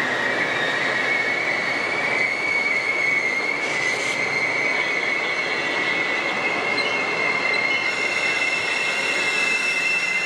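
Metra bilevel gallery commuter coaches rolling past close by, with a steady rumble of wheels on rail and a continuous high-pitched squeal from the running gear that steps up slightly in pitch about two seconds in and again near the end.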